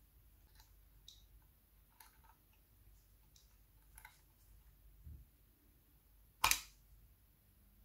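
Faint clicks and taps of small metal parts as a spare bulb is fitted into the spring retainer inside a metal pocket signal lamp's case, with one sharp, loud click near the end as it seats.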